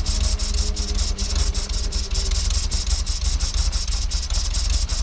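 1952 Fordson E83W's side-valve four-cylinder engine running unevenly after years laid up; it is plainly not happy, not yet smoothed out.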